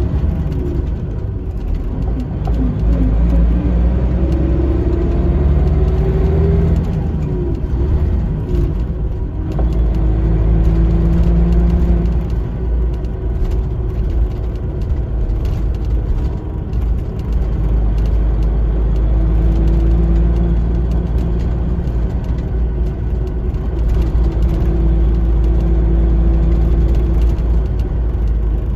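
Iveco 370S.12.30 coach's diesel engine heard from inside the passenger cabin while driving: a deep rumble whose note rises in pitch several times as the coach accelerates, then drops back, with light rattles from the cabin.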